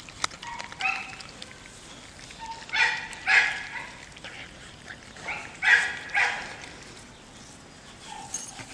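Short animal calls, several coming in pairs a few seconds apart, over the faint sound of a dog chewing.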